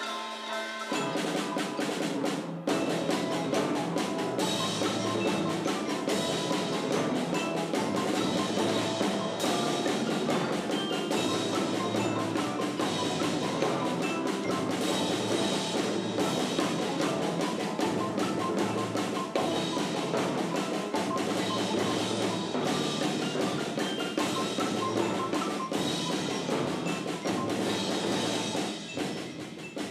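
Percussion ensemble playing a tune: marimbas, xylophones and other mallet instruments over a drum kit and piano, with a steady beat. The full ensemble comes in about two and a half seconds in.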